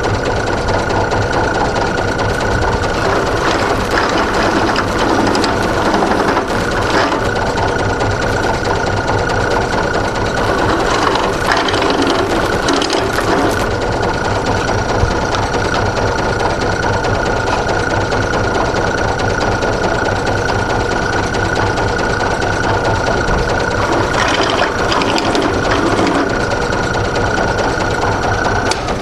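Drill press running with a step drill bit, deburring the backs of freshly drilled holes in a metal plate: a steady motor hum with a high whine and the bit cutting at the hole edges.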